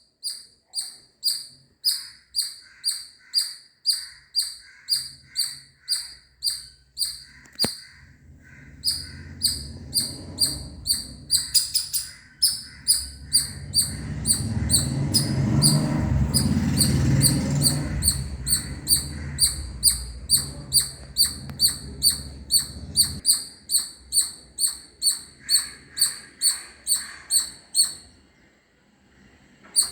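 Indian palm squirrel giving a loud, rapid series of sharp high chirps, about two or three a second, with a short pause about eight seconds in, stopping near the end. A low rumble rises under the chirping in the middle and fades out again.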